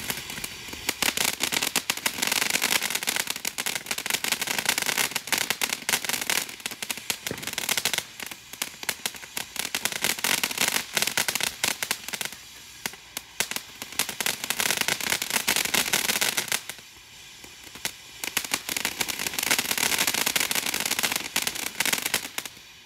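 "Take A Hit" fountain firework crackling continuously with a dense, rapid spatter of small pops as it sprays sparks. It eases off briefly about three times, surges again, and fades out near the end.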